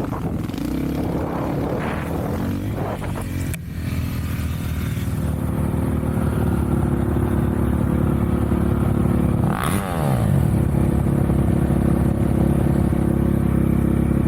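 Off-road vehicle engine running at a steady speed, with a short falling sweep in pitch about ten seconds in.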